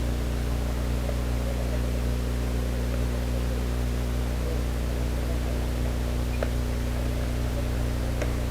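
Steady low hum with hiss, and two faint clicks, one past the middle and one near the end.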